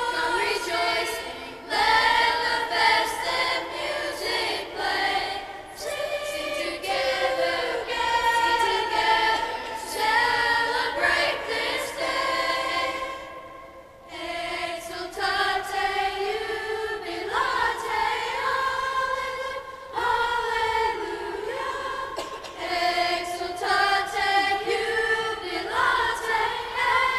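A school choir singing a slow song in held notes, with a short break between phrases about halfway through.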